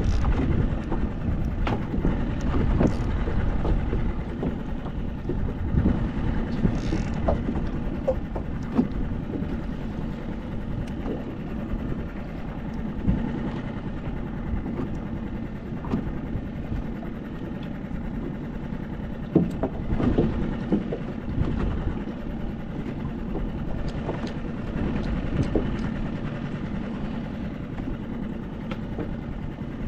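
Steady rumbling noise of a small boat out on the sea, with scattered knocks and clicks.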